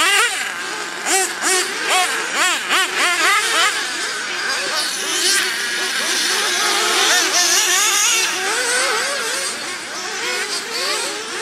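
Several nitro RC buggies' small engines revving up and down in quick, overlapping sweeps as the cars race round the track.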